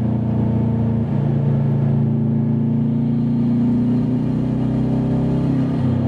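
2003 Subaru WRX's turbocharged flat-four engine under acceleration, heard from inside the cabin, its pitch climbing with changes about a second in and near the end. The car is being pushed to reproduce an intermittent stumble under load that has set a cylinder 1 misfire code (P0301).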